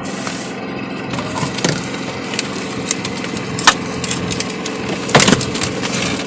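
A few sharp wooden knocks and clatters as fishing gear is handled on a bamboo raft, the loudest two about a third and four-fifths of the way through, over a steady engine hum.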